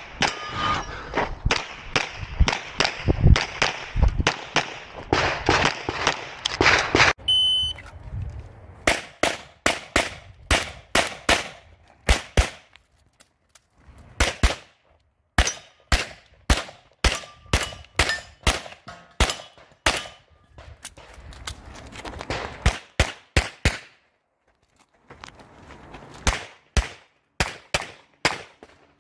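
Pistol shots fired in quick strings, each a sharp crack: densely packed in the first seven seconds, then after a short electronic beep about seven seconds in, more strings with gaps of a second or two between them.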